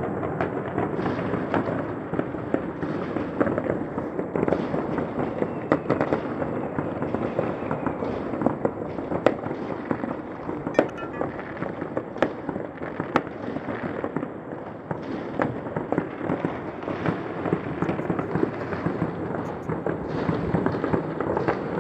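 Fireworks going off all across a city at once: a continuous din of overlapping distant bangs and crackles, with sharper single reports standing out about once a second.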